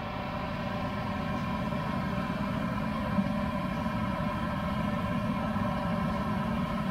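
An engine idling steadily, a constant droning hum with a busy street-market background. A single short click about three seconds in.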